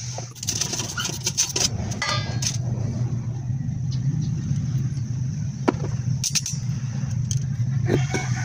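A motor running steadily with a low drone, with scattered clicks and knocks over it.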